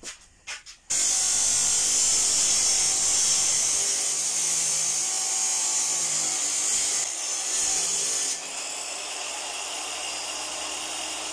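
A homemade bridge cut-off saw's spinning disc cutting through a piece of steel square at 90 degrees: after a few clicks, a loud high hissing grind of metal cutting starts about a second in and holds steadily. Past the middle the cut ends and the saw motor runs on freely, quieter, with a slowly falling whine.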